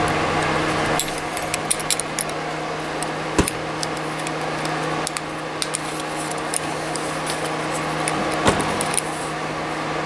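Light metallic clicks and clinks of a belt buckle's metal hardware being handled and fitted, with two sharper knocks, over a steady background hum.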